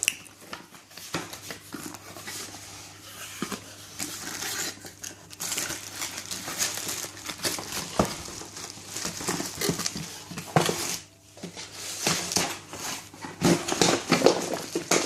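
Hands crinkling plastic packaging, with irregular knocks and clinks of hard plastic as the kettle's small plastic travel cups are handled.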